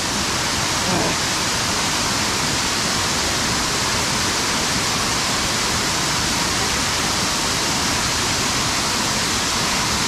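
Steady, even rush of waterfalls pouring into a pool.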